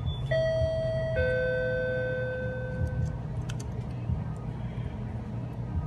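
Two-tone door chime ringing 'ding-dong', a higher note followed about a second later by a lower one, each fading out over a couple of seconds, over a steady low rumble.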